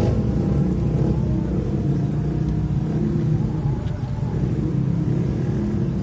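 Vehicle engine idling, heard from inside the cab as a steady low hum, with a few faint ticks; the siren stays silent.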